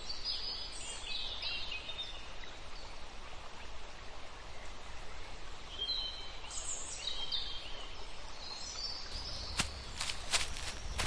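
Outdoor nature ambience: birds chirping in short calls over a steady background hiss. Near the end a run of sharp footsteps begins.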